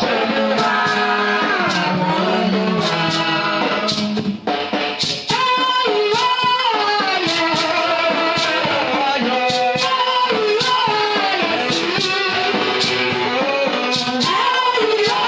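Live gospel praise-and-worship music: voices singing over a band with a steady drum beat. The music dips briefly about four and a half seconds in, then carries on.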